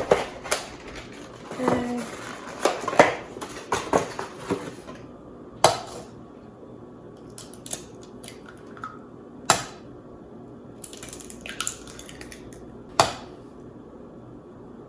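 Kitchen utensil scraping and clinking against a mixing bowl while cooked sweet potato flesh is scooped into it: a run of quick knocks and scrapes for the first few seconds, then three sharp knocks a few seconds apart.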